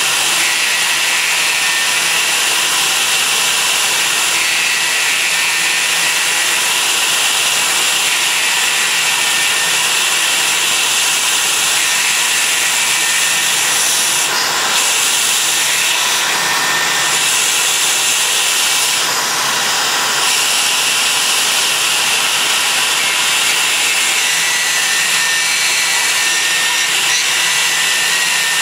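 CNC milling machine spindle running with a steady high whine while the cutter mills a plastic part. The cutting noise changes briefly a few times around the middle.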